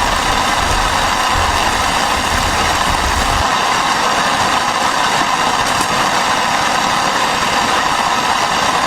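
Heavy rain and wind making a loud, steady hiss, with a low rumble underneath that drops away about three and a half seconds in.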